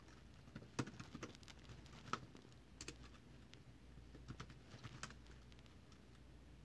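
Faint, irregular keystroke clicks from a computer keyboard as a command is typed.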